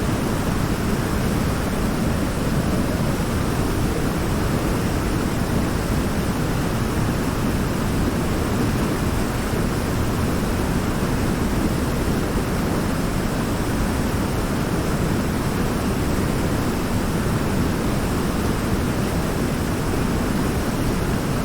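Waterfall: a steady, even rush of falling water, heaviest in the low range, with no change in level.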